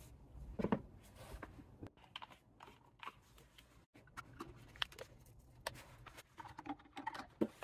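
Faint handling noises: small clicks and rustles as a plastic syringe of old brake fluid is emptied into a glass, then, after a cut, the foil seal is peeled off a new bottle of brake fluid.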